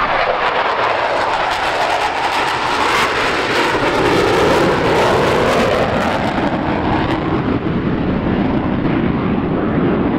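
Jet noise from a formation of four twin-engine RAAF F/A-18s flying past: a steady rushing roar whose pitch slides slowly downward as the jets pass and draw away, losing its hiss after about six seconds.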